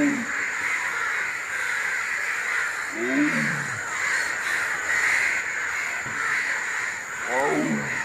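Crows cawing, two short calls about three seconds in and near the end, over a steady high buzz.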